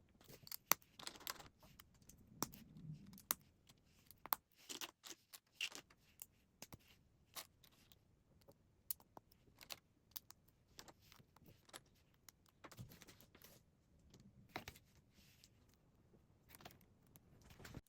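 Plastic Lego pieces being handled and pressed together: irregular sharp clicks and snaps with short bursts of light rattling as parts are picked up and fitted.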